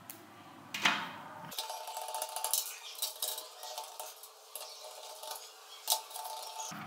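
Screwdriver driving screws through a PC case's metal side panel into a case fan's frame: faint small metallic clicks and scraping, with a sharper click about a second in and another near the end.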